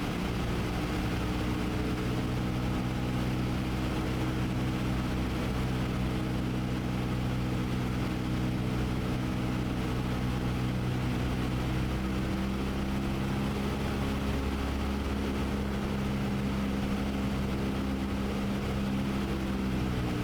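Cessna 172's four-cylinder piston engine and propeller at reduced approach power, a steady drone heard through the headset intercom feed, shifting slightly in pitch about twelve seconds in.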